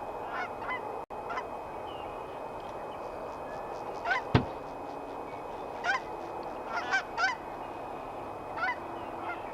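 Geese honking: short rising honks in scattered groups, several in quick succession around six to seven seconds in. A single sharp knock about four seconds in.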